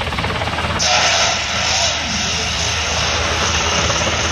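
Sikorsky H-60 Black Hawk-type military helicopter making a low, fast pass: steady rotor beat and engine drone, joined about a second in by a sudden loud rushing noise as it banks past.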